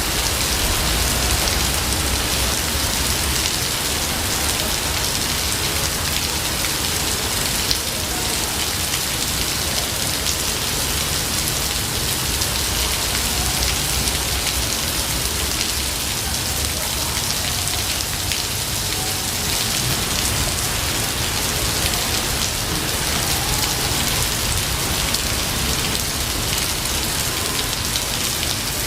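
Steady heavy rain falling on foliage and ground, a dense even hiss with fine drop patter and a low rumble underneath.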